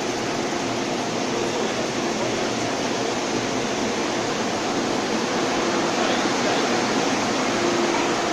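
Steady whoosh and hum of an MTR Tung Chung line train's air conditioning as the train stands at an underground platform with its doors open.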